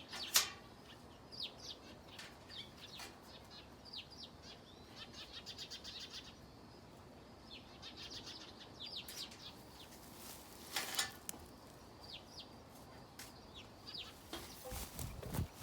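Small birds chirping: repeated short, high, falling chirps and quick trills. Two brief louder noises break in, one just after the start and one about two thirds of the way through.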